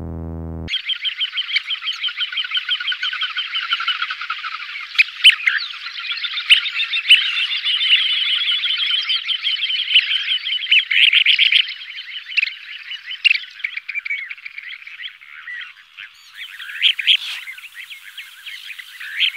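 A chorus of calling frogs: many quick, high calls overlapping, coming in suddenly just under a second in as synth music cuts off.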